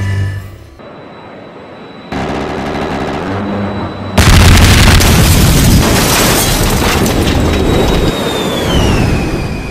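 A loud explosion-like boom starts suddenly about four seconds in and keeps rumbling on. Near the end a high tone slides down in pitch over it.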